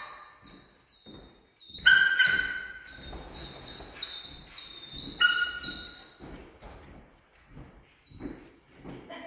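A dog whining: two high, drawn-out whines about three seconds apart, over footsteps on a laminate floor.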